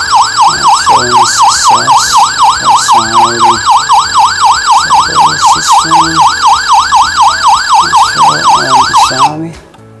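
Wireless burglar alarm system's siren going off with a loud warbling tone that sweeps up and down about three times a second, set off by the newly added photoelectric beam sensor. It cuts off suddenly about nine seconds in.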